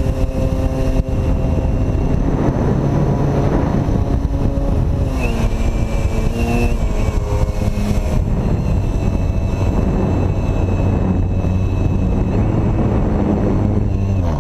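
Electric motor and propeller of a foam delta-wing RC plane, heard from a camera mounted right behind the prop: a steady buzzing hum over wind rush, its pitch shifting down and back up as the throttle changes. Near the end the pitch falls away.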